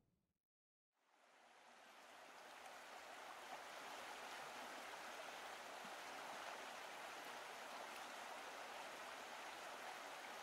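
Faint, steady rush of river water spilling over a low weir and through rapids, fading in about a second in after dead silence.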